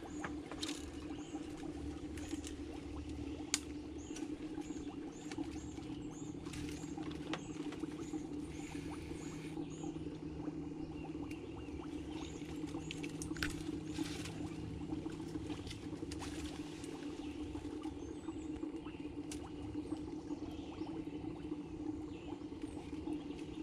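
Short, high squeaky chirps repeated about twice a second for the first nine seconds or so, over a steady low hum, with scattered light clicks and rustles as hands work fishing line among leafy branches.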